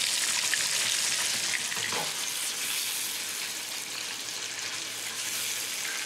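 Lobster pieces sizzling in melted butter in a frying pan, stirred with a heat-resistant spatula; a steady sizzle that eases off slightly.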